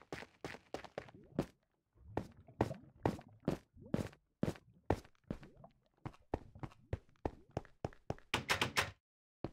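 A string of irregular knocks and thuds, about two or three a second, with a short pause early on and a fast cluster near the end, then cutting off suddenly.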